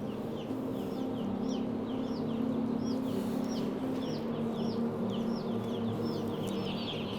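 Two-day-old broiler chicks peeping en masse: a dense stream of short, high chirps that fall in pitch, several a second, over a steady low hum.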